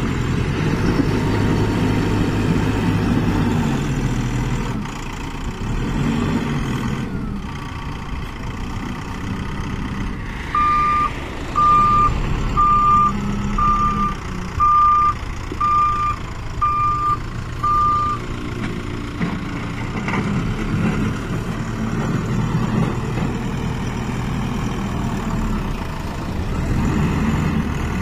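Mahindra EarthMaster SX backhoe loader's diesel engine running under load as it works soil with its front loader bucket, its sound rising and falling. From about ten seconds in, a reversing alarm beeps eight times, about one beep a second.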